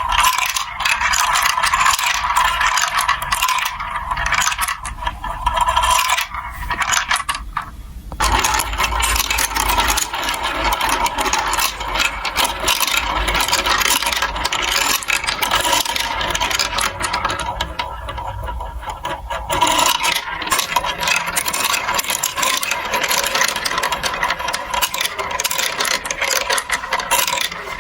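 Marbles rolling and rattling through a plastic building-block marble run, a continuous clatter of clicks and scraping.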